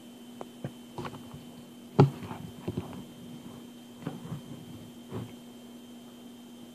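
Thick, gel-like melted-soap paste being squeezed and mushed by hand, giving irregular wet squelches and clicks, the loudest about two seconds in, over a faint steady hum.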